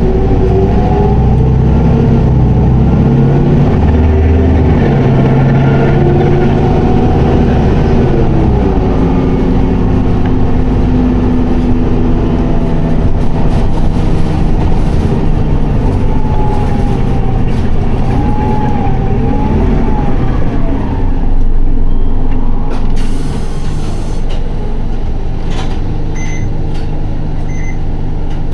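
2PG-LV290N3 city bus under way: its diesel engine and drivetrain pull with the transmission held in 4th gear, engine pitch rising and falling with road speed. About 23 seconds in the air brakes let out a short hiss, and the bus runs on more quietly, with two short high beeps near the end.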